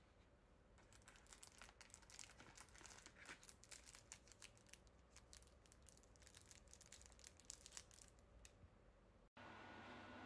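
Clear plastic wrapping around a castella manju crinkling as it is handled, faint quick crackles that stop about eight and a half seconds in. After a cut near the end, a steady faint hum.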